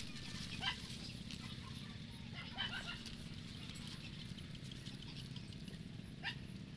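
Faint outdoor ambience: a steady low rumble with a few short, high animal calls, one about a second in, a small cluster near the middle and one near the end.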